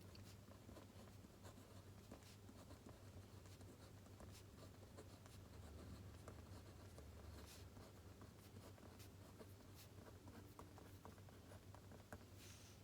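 Faint scratching of a pen or pencil writing on paper, in many short strokes and taps, with a couple of longer strokes about halfway and near the end. A low steady hum runs underneath.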